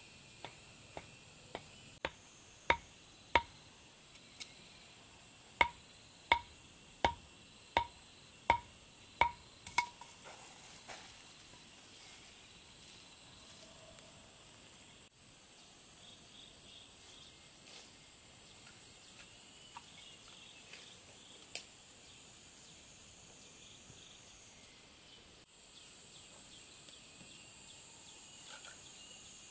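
About a dozen sharp knocks, well under a second apart, during the first ten seconds, each with a brief ring. After that only the steady high chirring of insects is heard.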